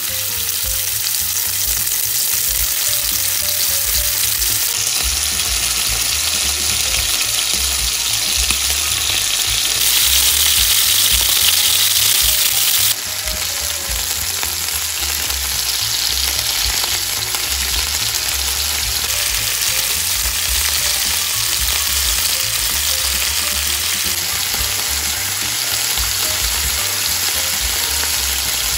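Beef cubes searing in hot olive oil in a nonstick frying pan: a loud, steady sizzle. It swells louder for about three seconds partway through, then drops suddenly.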